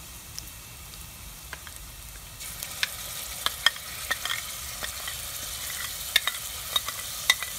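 Garlic, shallots and ginger sizzling in hot oil in a stainless steel pot, with sharp crackling pops. About two and a half seconds in, the sizzle grows louder as curry paste is spooned in from a bowl.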